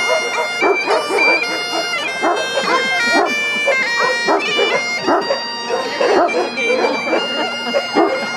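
Great Highland bagpipe played on the march: a melody of held notes stepping from one to the next over the steady drones. Dogs bark intermittently underneath.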